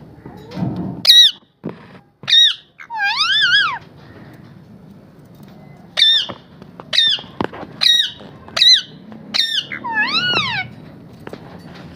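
Parrot calling: about seven short, sharp squawks that drop in pitch, with two longer warbling whistles about three seconds in and again near ten seconds, their pitch rising and falling.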